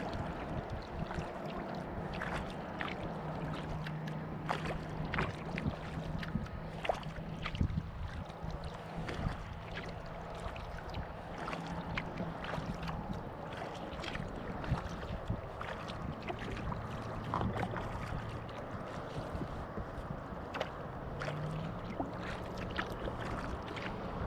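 Kayak paddle strokes on calm lake water: blades dipping and pulling, with frequent small splashes and drips.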